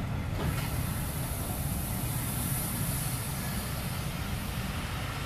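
Steady low rumble of a train standing in the station, with a high hiss of air joining about half a second in and strongest for the next three seconds.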